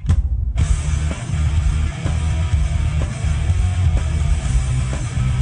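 Background rock music with guitar playing steadily.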